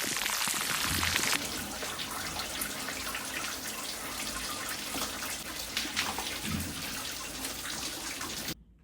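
Water running steadily from a tap, a little louder in the first second or so, stopping abruptly near the end.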